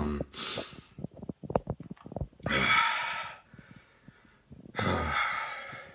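A man retching over a toilet, bringing up bile on an empty stomach during a bout of cyclic vomiting syndrome. A sharp breath is followed by a run of short gulping and gagging clicks, then two long, harsh heaves about two seconds apart.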